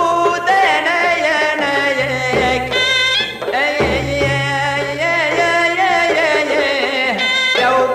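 Tunisian folk song playing: a wavering Middle Eastern melody line, likely sung, over a low pulsing bass and drum.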